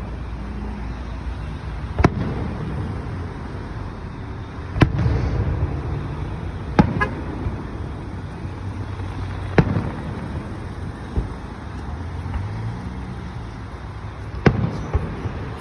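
Aerial fireworks shells bursting in a display, about six sharp bangs a couple of seconds apart, over a steady low rumble.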